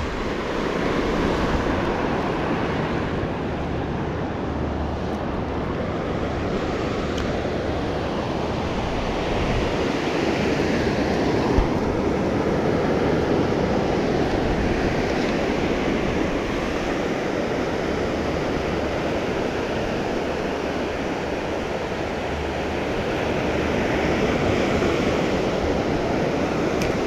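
Ocean surf breaking and washing up the beach in a steady rush, with some wind on the microphone. There is a single short knock near the middle.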